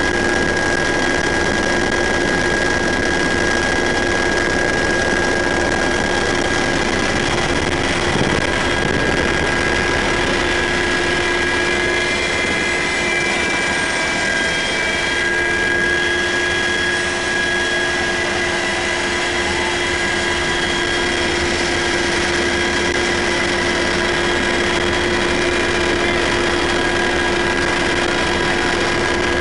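Cabin noise inside a UH-60 Black Hawk helicopter in flight: its twin turboshaft engines and rotor make a steady, loud rushing drone with several high, steady whining tones on top.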